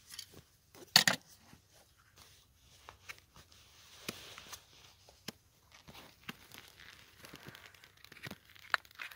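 Hoof knife paring and scraping dead sole from a horse's hoof: irregular short crackling cuts and scrapes, with one sharp crack about a second in that is the loudest sound.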